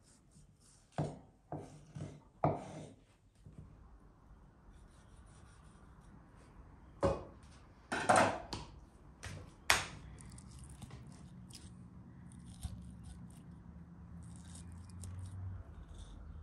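Food-preparation handling sounds: sharp knocks and scrapes in two groups, about a second in and again from about seven to ten seconds in, followed by a low steady hum with faint ticking.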